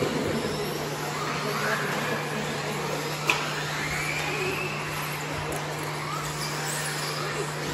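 Electric 1/10 off-road RC buggies racing, their motors whining up and down in pitch as they accelerate and slow, with a sharp knock about three seconds in.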